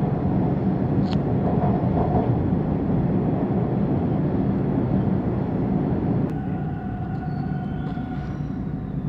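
Subway car running, heard from inside the car: a loud, steady low rumble of the train on the rails. About six seconds in the rumble drops a little and a steady whine comes in over it.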